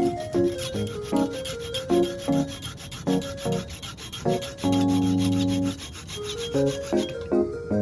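Background music: short pitched notes in a steady, bouncy rhythm, with a chord held for about a second near the middle and a fast scratchy ticking high above the notes that stops near the end.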